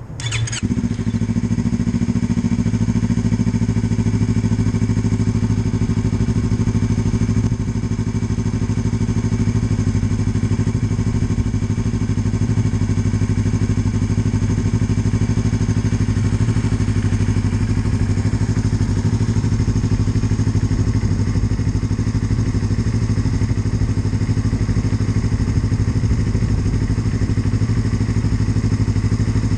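Yamaha MT-03 321 cc parallel-twin running through an Arrow Pro Race slip-on exhaust. It catches with a short sharp burst right at the start, then idles steadily.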